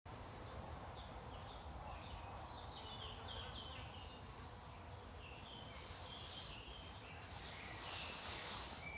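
Woodland ambience: small birds chirping with many short, falling notes over a low steady rumble, with a few brief bursts of hiss in the second half.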